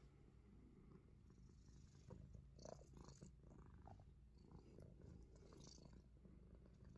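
Himalayan Persian cat purring faintly and steadily, with a few soft rustles or clicks about two to three seconds in and again near six seconds.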